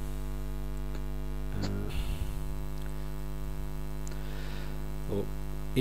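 Steady electrical mains hum with a buzz of evenly spaced overtones, broken twice by brief faint sounds.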